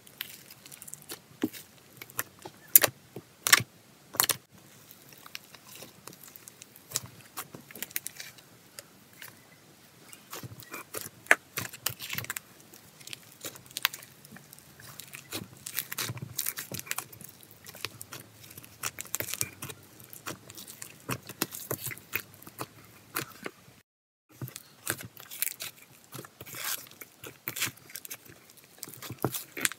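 A big mass of mixed slime studded with foam beads being kneaded, squeezed and stretched by hand in a stainless steel bowl, giving irregular crunchy crackles, squelches and sharp popping clicks. The sound drops out briefly about two-thirds of the way through.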